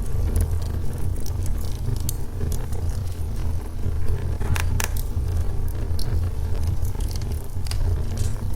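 Log fire burning in a fireplace: a steady low rumble of the flames with scattered crackles and pops, two sharper pops close together about halfway through.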